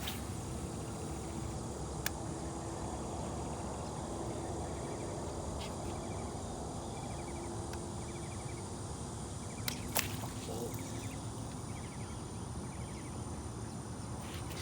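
Outdoor ambience: a steady low rumble with faint insect chirping in short repeated trills, and a few sharp clicks, the clearest about two seconds and ten seconds in.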